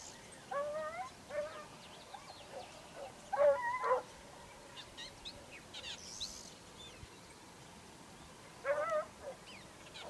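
A pack of hunting hounds baying at a distance while working a hare's scent: wavering, drawn-out cries in three bouts, the loudest about three and a half seconds in. Birds chirp faintly in between.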